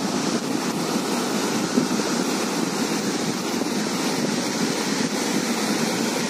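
Floodwater rushing out through the open sluice gates of a river dam, a steady, even churning of turbulent white water.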